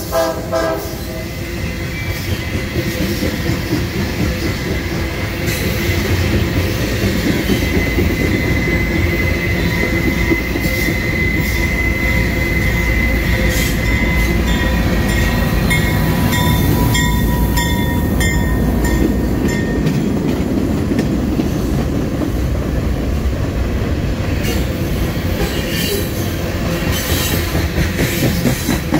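Long BNSF coal train rolling past: a steady rumble and clatter of coal car wheels on the rails, with thin wheel-squeal tones coming and going through the middle. A train horn chord trails off in the first second, and a Norfolk Southern diesel locomotive runs by on the near track partway through.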